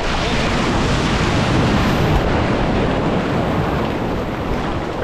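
Breaking sea wave washing over a swimmer right at the microphone: a loud, continuous rush of churning surf and foam.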